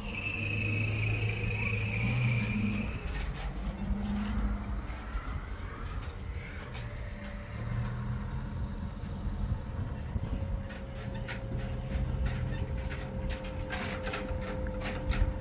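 A motor vehicle's engine running steadily just after being started. A high steady tone sounds over it for the first three seconds, and short clicks come and go in the second half.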